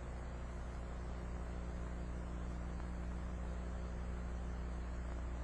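Steady electrical mains hum with an even hiss underneath, unchanging throughout.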